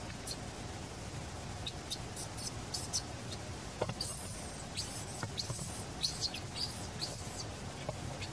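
Baby macaque giving many short, high-pitched squeaks, scattered irregularly and a few coming in quick runs.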